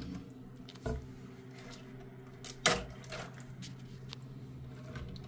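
Plastic parts of a toilet fill valve clicking and knocking as they are handled inside the tank: two sharp knocks, about a second in and nearly three seconds in, the second the louder, and a few lighter ticks. A steady low hum runs underneath.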